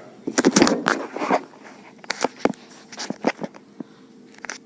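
A quick run of clattering knocks from hard objects being handled, then a few single clicks and taps, over a faint steady hum.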